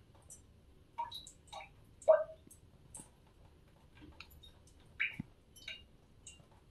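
Water dripping from the underside of a cracked toilet tank: irregular drops plinking, the loudest about two seconds in.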